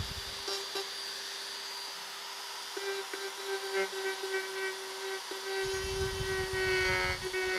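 Hand-held rotary tool with a carbide burr running at a steady high whine while it grinds into olive wood. A deeper rumble joins near the end as the burr bites.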